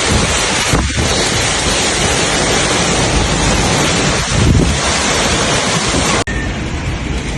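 Strong wind from approaching Hurricane Beryl buffeting the microphone in a loud, steady rush. Near the end it cuts abruptly to a slightly quieter rush.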